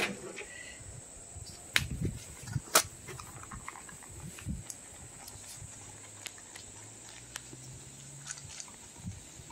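Shetland sheepdog puppy eating dry kibble from a plastic bowl: soft, irregular crunching and clicking of the kibble. Two sharper clacks come about two and three seconds in.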